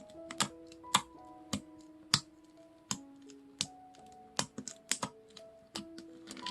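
Background music of held notes, with a dozen or so sharp, irregularly spaced clicks or taps over it.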